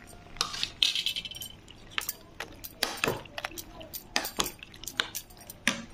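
A steel spoon stirring a wet chaat of boiled peas, onion and cucumber, clinking irregularly against the bowl many times.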